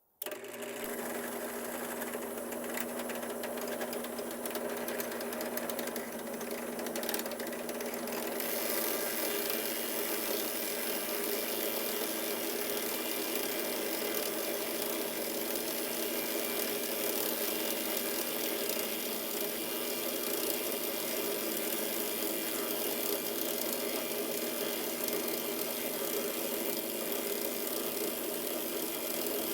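Drill press running steadily: a motor hum with several steady whining tones. About eight seconds in, the sound turns brighter and hissier, and it stays that way.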